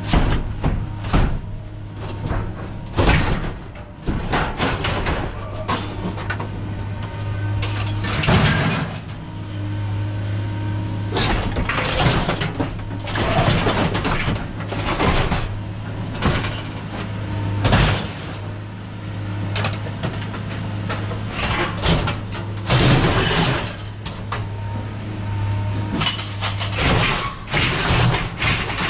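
Scrap metal clanking and crashing again and again as pieces are thrown or dropped, over a steady low hum.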